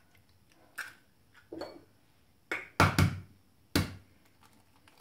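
Light taps, then a handful of sharp knocks about halfway through, as an egg is broken and its shell handled over a Thermomix's steel mixing bowl.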